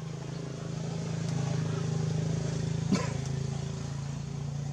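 Steady low engine hum, swelling in the middle and easing off again, with one sharp click about three seconds in.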